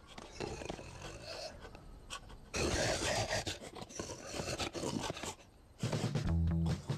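Cartoon sound effects for a lion and a rhinoceros: scuffling, rubbing noises, then a loud low-pitched animal growl from about six seconds in.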